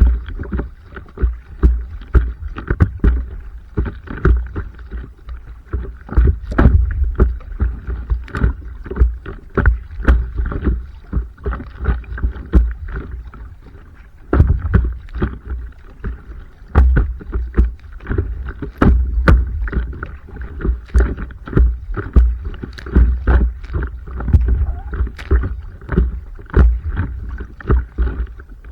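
Water splashing and slapping against a stand-up paddleboard as it is paddled, in a steady run of irregular knocks and splashes with a low rumble underneath, easing off briefly about halfway.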